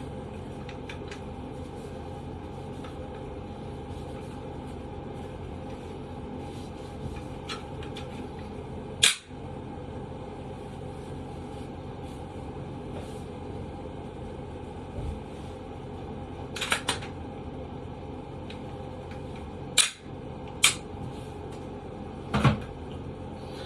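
Scattered sharp clicks and knocks from a Glock pistol and its parts being handled during cleaning, over a steady background hum. The loudest knock comes about nine seconds in, and a few more come near the end.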